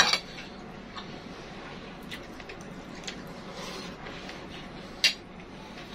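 Metal cutlery clinking and scraping on plates during a meal: a few faint clicks, with sharper clinks at the start and about five seconds in.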